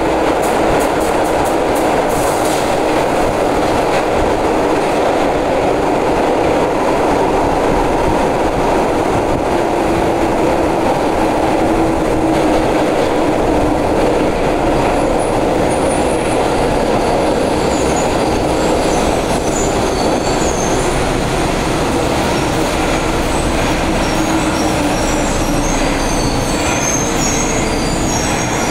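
Inside a São Paulo Metro Frota E (Mafersa/Alstom Milênio) subway car running through a tunnel: a loud, steady rumble of steel wheels on rail with a steady hum, and a few clicks in the first couple of seconds. From about halfway, thin high-pitched wheel squeals come in as the train nears the station.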